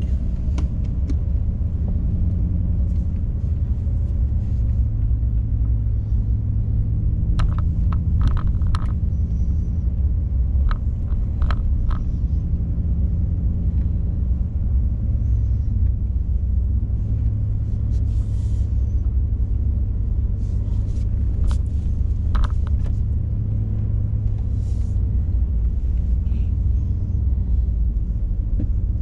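Steady low rumble of a car's engine and tyres on the road, heard from inside the cabin while driving, with a few scattered sharp clicks in the middle.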